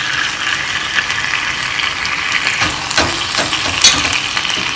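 Chunks of beef sizzling steadily in hot oil in a pot as they brown on the outside, with a few sharp clicks of a fork against the pot, the loudest about a second before the end.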